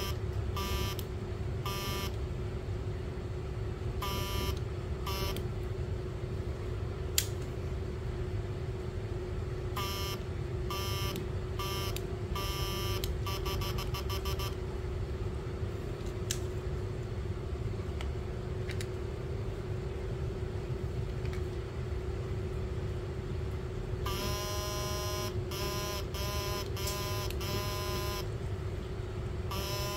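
Homemade transformer voltage converter running under a lamp load: a steady electrical hum, with high buzzing tones that cut in and out in bursts of about a second. Near the middle the buzzing comes as a run of quick short pulses, and near the end as a long stretch of stop-start bursts. There is one sharp click about a quarter of the way in.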